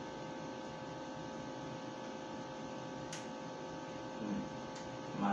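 Steady electrical hum made of many level tones over a faint hiss, with one sharp click about three seconds in.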